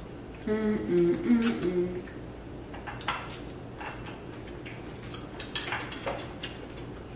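Chopsticks clicking and clinking against plates and small sauce dishes during a meal, a handful of separate sharp ticks. Near the start a voice hums a few notes for about a second and a half, the loudest sound here.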